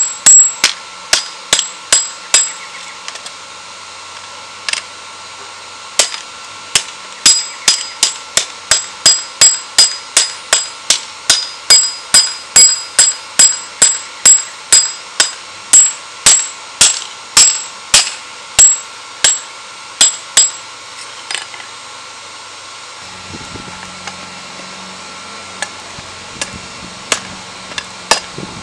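Hand hammer striking a steel spearhead blade on a small block anvil, each blow ringing sharply, at a steady pace of about two blows a second for most of the time. Near the end the blows give way to a few light taps, and a low steady hum comes in.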